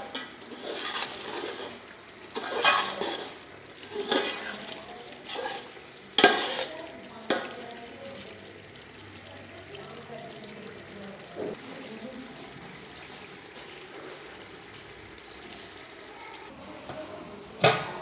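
Metal slotted spoon stirring and scraping chicken masala in an aluminium pot, several strokes over the first seven seconds, then the masala sizzling quietly as it fries. A sharp metal clank near the end.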